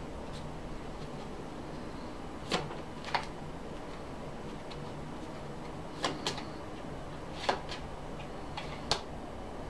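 Scattered sharp clicks and taps from a deck of cards being handled, about seven of them and some in quick pairs, over a steady low hum.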